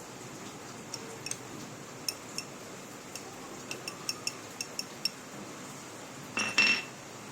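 A metal spoon clinking against a spice container and pan while teaspoons of coriander powder are scooped and added: a run of light, ringing clinks, then a louder clatter about six and a half seconds in.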